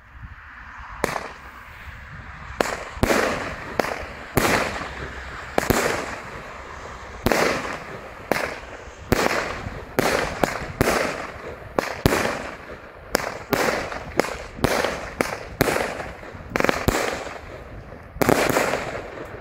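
A Superior Fireworks 'Glamourous' 16-shot consumer firework battery (cake) with 25 mm tubes firing: a run of sharp bangs from shells launching and bursting, about one every half second to second, each trailing off briefly. Two bangs come close together near the end.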